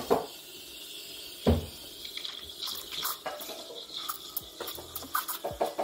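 Liquid pouring or trickling, with two knocks early on and small clicks and clatters of handling later.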